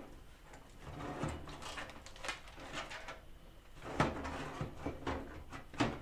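Power supply being slid into the bottom bay of an NZXT H510 steel PC case and seated against the back panel: scraping and handling, with a few sharp knocks.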